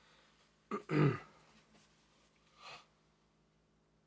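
A man clears his throat once about a second in: a short, rough vocal burst that drops in pitch. A fainter, briefer sound follows near the three-second mark.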